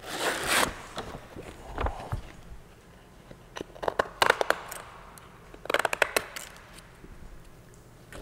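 Sheets of sandpaper being handled: short bouts of scraping and crackling rustle, a few seconds apart.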